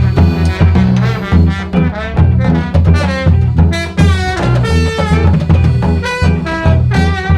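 Street brass band playing: saxophone and brass over a drum kit, with a low bass line stepping from note to note.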